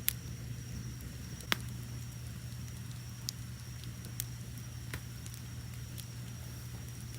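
Fire burning with a low steady roar and sharp crackles and pops at irregular intervals, two loudest just after the start and about a second and a half in, over steady high-pitched cricket chirping.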